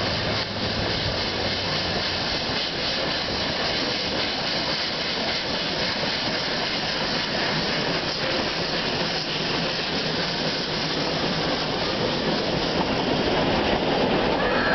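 Puffing Billy's narrow-gauge steam tank locomotive 7A passing close by on a wooden trestle bridge, a steady noise of running gear and escaping steam, followed near the end by its passenger carriages rolling past.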